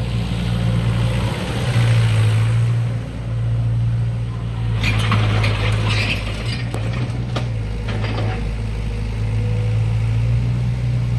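SANY 60C mini excavator's diesel engine running steadily, with a run of sharp metallic clicks and clanks midway through.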